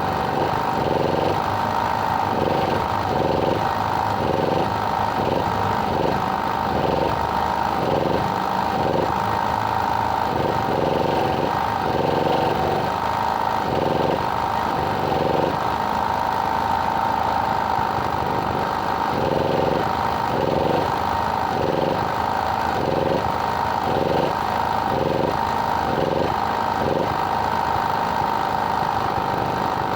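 A small engine running steadily, with a constant drone and a regular pulsing about once or twice a second that drops out for a few seconds midway.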